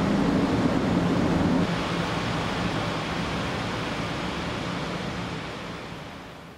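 Steady rush of water with a low hum, typical of water driving a hydroelectric turbine. It fades slowly from about two seconds in.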